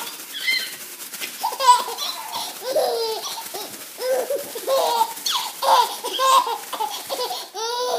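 Six-month-old baby laughing in short bursts, one after another.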